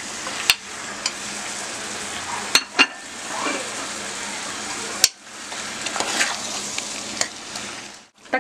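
Chopped tomatoes and spiced liver sizzling as they fry in oil in an aluminium pressure cooker, being stirred with a steel spoon. The spoon clicks sharply against the pot several times.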